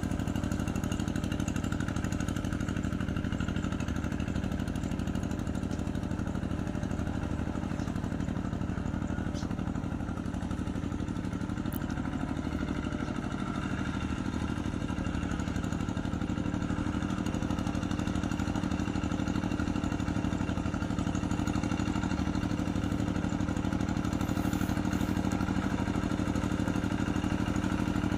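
Two-wheel hand tractor's engine running steadily while ploughing a rice paddy.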